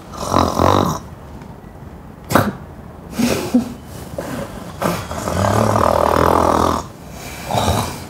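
Loud, exaggerated snoring from a woman asleep: several rough, low snores, the longest lasting nearly two seconds a little past the middle.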